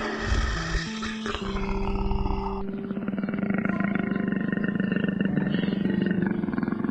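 A wild animal roaring, a long, rough, pulsing roar from a little under half-way in to the end, over steady background music.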